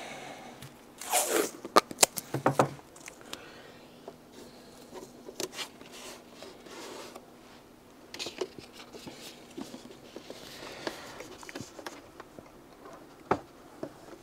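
Tape ripped off the roll in a short burst about a second in, then small clicks, taps and paper rustling as the tape and a paper template are pressed onto a plastic model-aircraft cowl.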